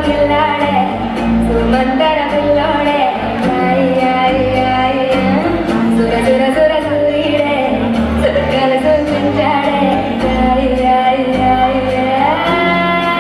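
Telugu film song playing, a woman singing over a steady beat.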